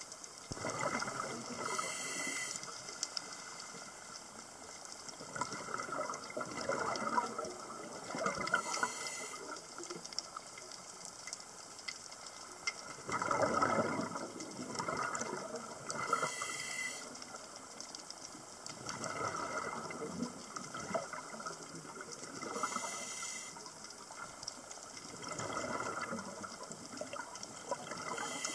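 Scuba regulator breathing underwater: a short hissing inhale, then a longer gurgle of exhaled bubbles, repeating about every six to seven seconds.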